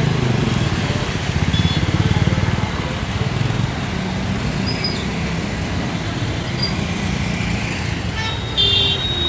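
Road traffic: a motor vehicle engine running with a low, even rumble, louder over the first few seconds, and a short horn toot near the end.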